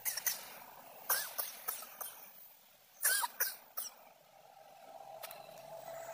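Three clusters of short, harsh bursts, then a steady engine hum that builds over the last two seconds as traffic passes on the road.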